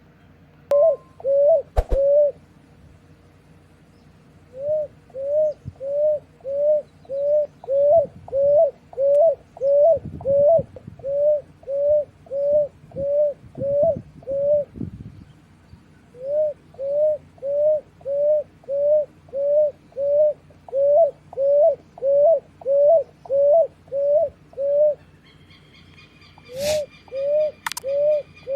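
Picui ground dove cooing: long runs of short, low coos, each rising then falling, about two a second, broken by a few brief pauses. In the last few seconds a higher, drawn-out call from another bird joins in, with a few sharp clicks.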